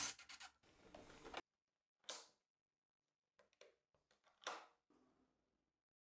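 Cordless drill driving a screw through a brass pocket door latch plate into the door, in short stop-start pulses for about the first second and a half before cutting off. After that, near silence with a few soft clicks and taps.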